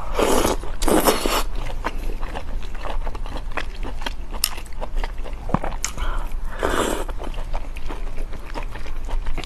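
Close-miked eating: noodles slurped in noisy bursts about half a second long, twice in the first second and a half and again about seven seconds in, with wet chewing clicks between them. A steady low hum runs underneath.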